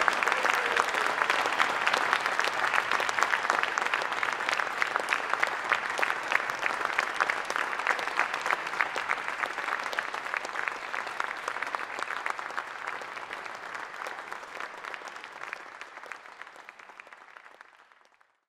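Audience applauding, dense clapping that gradually dies away near the end.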